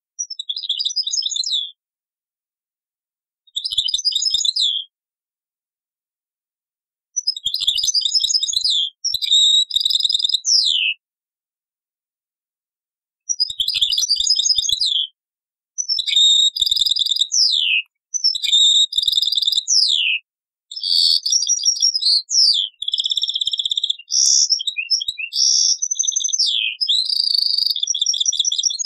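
European goldfinch (Algerian bird) singing: phrases of rapid twittering trills mixed with quick downward-sliding notes. At first the phrases are short with clear pauses between them; from about two-thirds of the way in the song runs almost without a break.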